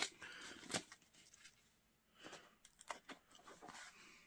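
Faint rustling and crinkling of packaging being handled, with a few short soft clicks in the second half.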